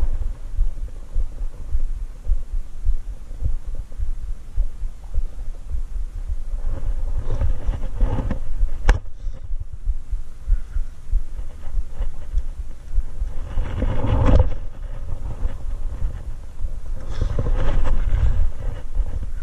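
Low rumbling thumps and rustling against a chest-mounted camera's microphone, the noise of body movement and wind on the mic. It swells into louder rushes about seven, thirteen and seventeen seconds in, with one sharp click about nine seconds in.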